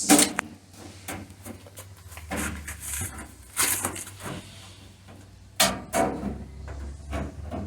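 Workshop handling sounds: irregular knocks, clunks and short scrapes as metal body panels are handled and offered up to the frame, with a sharp knock at the very start.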